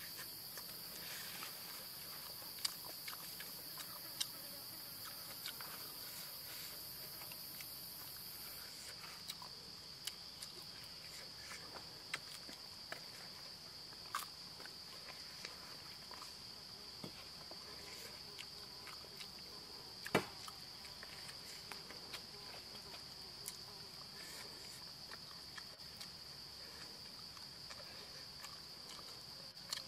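Steady high-pitched insect chorus, with a second, higher insect drone that cuts off about a third of the way in. Scattered sharp clicks and smacks sound over it, the loudest about two thirds of the way in.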